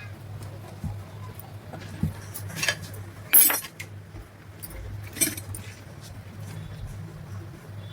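Metal parts or tools clinking against each other three or four times, the loudest about halfway through, over a steady low hum.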